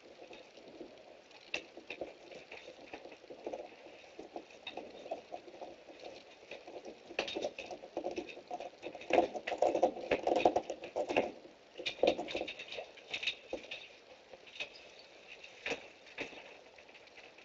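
Wolfdog pawing at a sliding glass door: claws clicking and scraping on the glass and frame, heard through a security camera's microphone, with the busiest scrabbling about nine to eleven seconds in.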